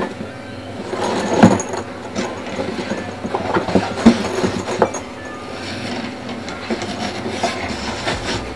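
Handling noise from a fabric-covered semi-rigid AGV helmet case being turned over in the hands: rubbing and scuffing with a few sharp knocks, the loudest about a second and a half in and again around four seconds in, over a faint steady hum.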